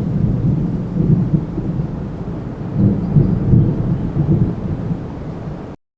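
Thunder rumbling low and deep, swelling and fading in rolling waves, then cutting off abruptly near the end.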